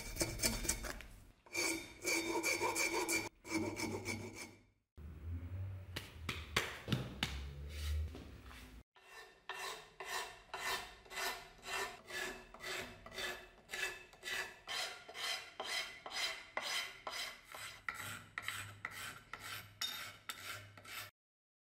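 Beech axe handle being smoothed by hand: scratchy rubbing strokes on the wood, in a few short stretches and then a steady back-and-forth of about two strokes a second.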